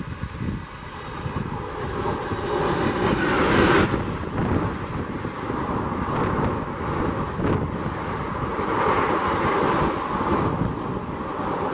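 WAP-4 electric locomotive and its passenger coaches passing at full speed: a rising rush that peaks about four seconds in as the locomotive goes by, then the steady rumble of coach wheels running over the rails, with wind buffeting the microphone.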